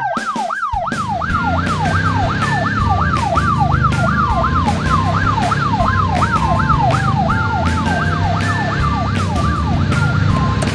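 Police car siren in a fast yelp, its pitch sweeping up and down about three times a second without a break. Under it, background music with a steady beat.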